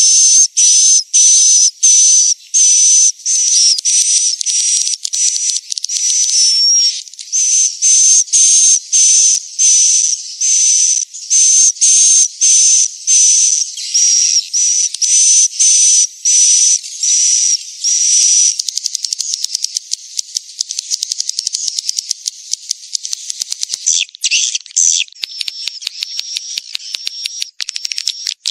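Swiftlet calls from a swiftlet-house lure recording of roosting calls. A regular train of high, buzzy chirps comes about two a second, then after about eighteen seconds it turns into a fast, dry twittering of rapid clicks.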